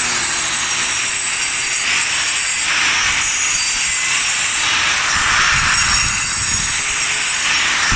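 Angle grinder grinding a concrete floor, a loud, steady, rasping whine whose pitch and low rumble shift slightly as the load changes.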